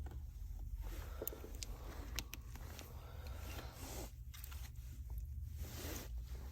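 Light clicks and scraping from small tools and parts being fitted into a Samsung Galaxy S8 Plus during reassembly, with a few sharp ticks in the first couple of seconds. A steady low hum runs underneath.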